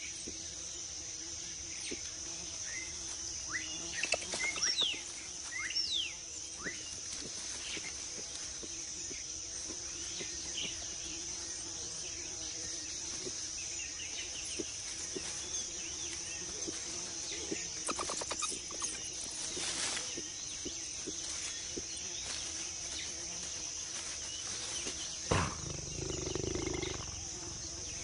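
Tropical rainforest ambience: a steady high-pitched insect drone, with a few quick bird chirps about four to six seconds in. Near the end comes a sharp snap, followed by a low sound lasting about a second.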